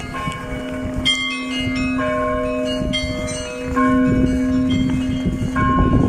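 Church bells ringing: several bells of different pitch struck one after another, about once a second, each ringing on over a steady deeper tone.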